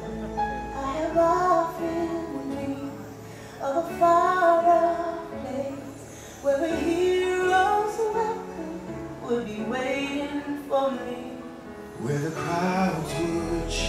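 The show's music soundtrack with a woman singing phrase after phrase over the accompaniment.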